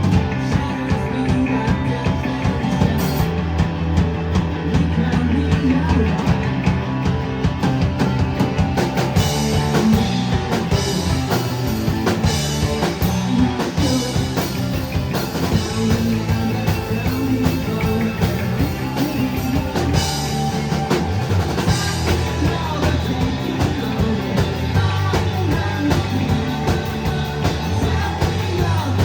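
A rock band playing live: drum kit, bass and guitars with a steady beat.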